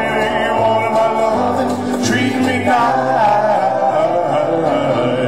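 Live band music with a man singing long held notes over a steady bass line.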